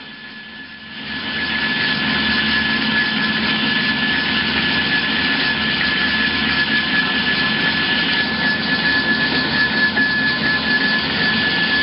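Hyd-Mech S20 horizontal bandsaw cutting through a solid, thick piece of metal, coming up about a second in and then running steadily with a thin high whine over the cutting noise.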